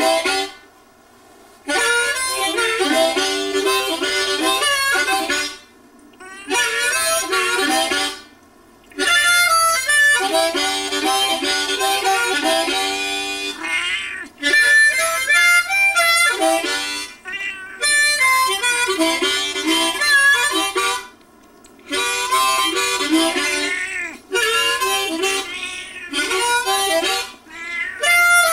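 Harmonica played in short phrases of held and shifting notes, with brief pauses between phrases.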